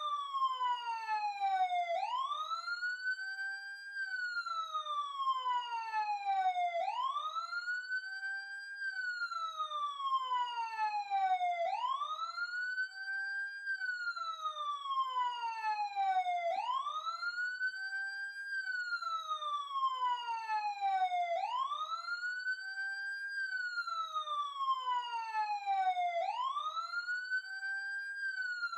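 Police car siren on a wail cycle: the pitch sweeps up quickly, then slides slowly back down, repeating about every five seconds.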